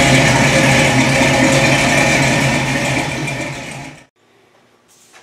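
1968 Ford Mustang's engine, fitted with a Competition Cams camshaft, running steadily just after being fired up. The sound fades and cuts off about four seconds in.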